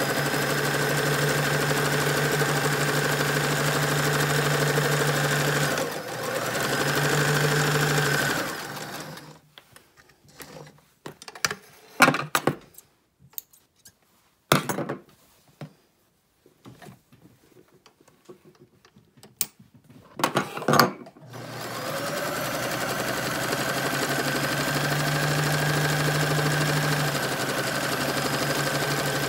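Domestic electric sewing machine running steadily while top-stitching, with a brief pause about six seconds in. It stops for about twelve seconds, during which there are scattered sharp clicks and knocks, and then runs steadily again.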